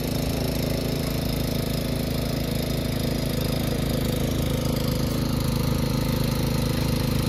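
Small petrol engine of a portable hydraulic power unit for rescue tools running steadily at a constant speed.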